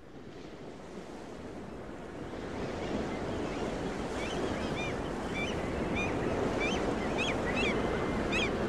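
Recorded ocean surf fading in and growing steadily louder, with small birds chirping over it from about four seconds in.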